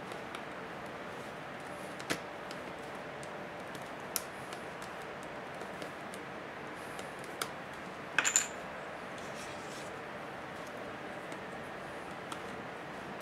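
A plastic prying pick and fingers working along the edge of a Samsung Galaxy Tab 3's frame, giving small sharp clicks about 2, 4 and 7.5 seconds in and a quick cluster of louder clicks a little after 8 seconds, over a steady hiss.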